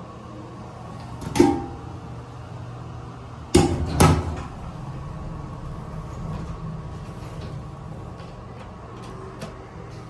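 Paramount hydraulic elevator in operation: a short knock about a second in, then a sudden bang and a second thump a moment later, typical of the single-slide car door closing, over a steady low hum of the elevator machinery.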